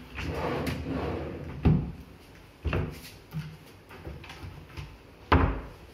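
Modular kitchen cabinet drawers being slid open and pushed shut: a sliding rumble at first, then several knocks as they close, the loudest near the end.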